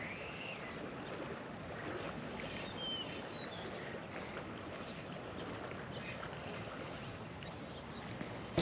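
Steady outdoor background noise, like wind and water hiss, with a few faint, short high-pitched chirps scattered through it.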